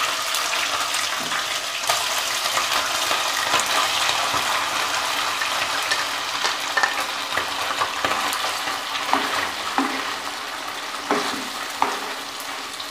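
Boiled buffalo-brain pieces sizzling as they go into hot desi ghee in a wok and are stirred with a plastic spatula. A steady sizzle dotted with many small sharp pops and scrapes, easing off a little near the end.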